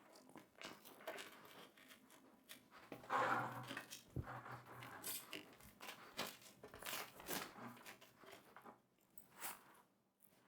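Small handling noises while assembling a cable by hand: an irregular string of clicks, scrapes and rustles, with a denser scraping burst about three seconds in.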